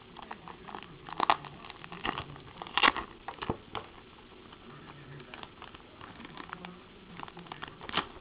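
Crinkling and rustling with irregular clicks and taps, the loudest about a second in, near the three-second mark and near the end: a trade package of baseball cards being opened and the cards handled.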